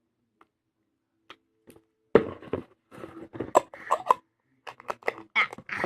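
Slime being squished and poked by hand. After a couple of quiet seconds with a few faint ticks, it gives a rapid string of sticky clicks and pops from trapped air.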